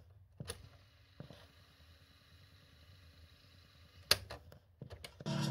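Mechanical clicks of the push buttons on top of a Toshiba RT-8055 radio cassette recorder being pressed, a few single clicks then a quick cluster about four seconds in. Music starts from the set's speaker just before the end.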